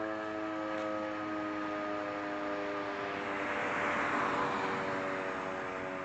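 Air-raid siren holding a steady chord of tones. A jet aircraft's rushing noise swells and fades over it about three to five seconds in.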